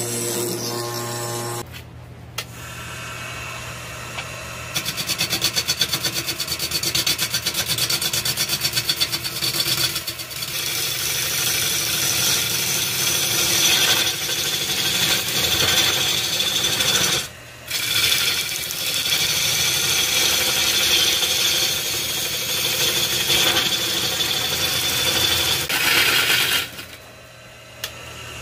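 Bench grinder motor humming for the first couple of seconds, then a wood lathe spinning a block of tree root while a turning gouge cuts into it, a rasping cut with a fast regular pulse as the tool meets the uneven block each turn, over the lathe's steady motor hum. The cut breaks off briefly twice, and near the end only the lathe's hum is left.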